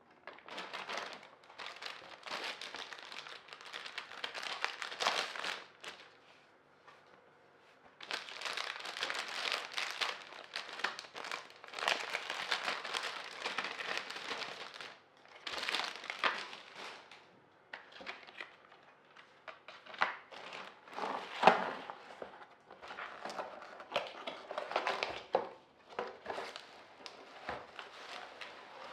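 Packaging being unwrapped and handled, crinkling in bursts of a few seconds with short pauses between, with one sharper snap about two-thirds of the way through.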